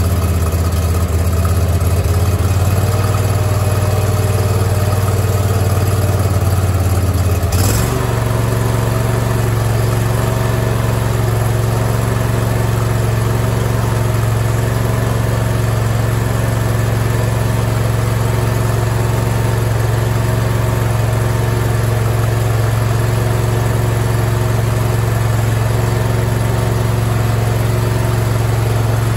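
Gasoline engine of a new Bradley 36-inch hydrostatic walk-behind mower running steadily on its first start, blades disengaged. A click about seven seconds in, after which the engine note steps up slightly and holds steady.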